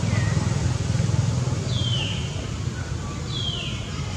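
Steady low rumble with a high, falling whistled call repeated three times, about a second and a half apart.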